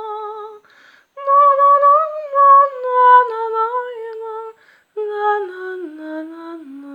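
A high voice humming a slow, wordless melody in three phrases, with brief pauses about a second in and near five seconds. The last phrase steps down in pitch.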